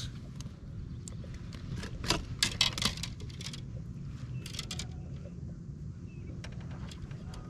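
Clicks and light rattles from unhooking a small, just-landed crappie, in two clusters, the louder about two to three and a half seconds in, over a steady low rumble.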